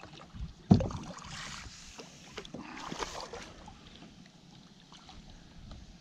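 A single hard knock on the kayak's hull about a second in, then splashing and rustling as a freshly caught bass is brought to the kayak.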